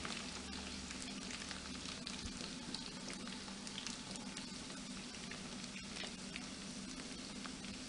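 Diced raw potatoes frying in oil in a frying pan, a steady sizzle with scattered small crackles, as they start to brown at the edges.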